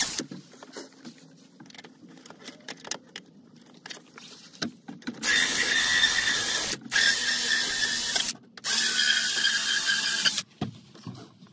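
Cordless drill drilling into a dashboard panel, running in three short bursts of about two seconds each with brief pauses between, after a few seconds of light clicks and handling.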